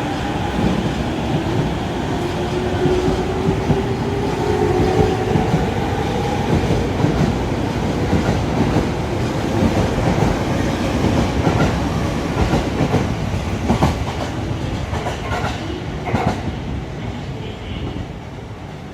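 E231 series 500-number electric commuter train pulling out of a station: its traction motors whine, rising in pitch as it accelerates, over the rumble of the cars. Later the wheels clack over rail joints, and the sound fades toward the end as the train moves away.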